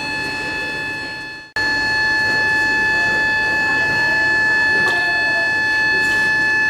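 A steady high-pitched machine whine with several overtones over a low rumble. It fades out about a second and a half in and comes back abruptly. There is a faint knock near the end.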